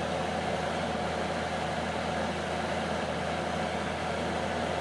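Magic Chef dehumidifier running steadily, the compressor's low hum under the fan's air noise. The compressor is in one of its short running spells: it keeps shutting off and restarting every couple of minutes, a fault the owner suspects lies in the wiring rather than low refrigerant.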